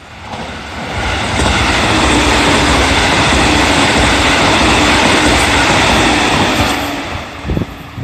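JR Central electric multiple unit passing close at speed, its wheels rumbling and clacking over the rail joints. The sound builds over the first second or so, holds loud, and fades away near the end as the train recedes.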